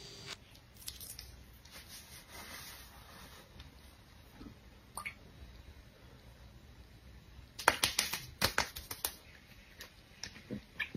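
Close-up handling of skincare bottles: a plastic toner bottle is tipped and its liquid dabbed onto the fingers, with faint squishy handling sounds. About two-thirds of the way through comes a quick run of sharp taps and clicks, and a few more clicks follow near the end as a glass serum dropper bottle is picked up.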